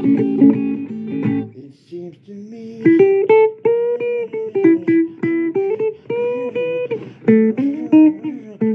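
Blues guitar playing an instrumental passage of single plucked notes, some of them bent in pitch. There is a short pause about two seconds in.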